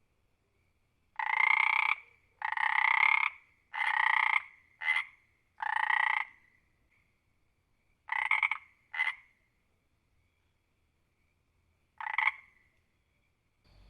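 A frog croaking in eight separate croaks, most under a second long: five in a quick run, then two close together, then a lone croak near the end.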